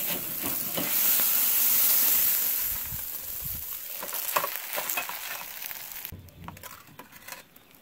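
Fish sizzling on a charcoal kettle grill while a stainless steel fish spatula slides under the fillet and lifts it off the grate, with scrapes and clicks of metal. The sizzle stops abruptly about six seconds in.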